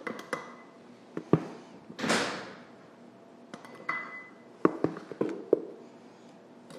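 A measuring cup scooping flour from a plastic tub and knocking and clinking against the tub and a stainless steel mixing bowl, with short ringing clinks. A soft rush about two seconds in as a cupful of flour is poured into the bowl.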